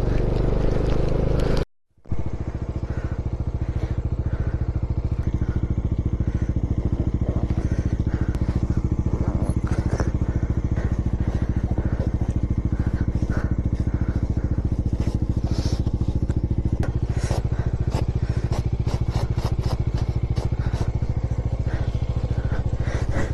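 Motorcycle engine running steadily while riding, its pitch holding level. There is a brief cut-out about two seconds in, and scattered crackles come in later.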